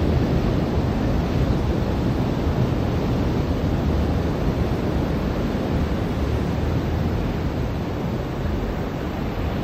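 Ocean surf washing onto a beach: a steady, rushing wash of waves with a deep rumble, easing off slightly near the end.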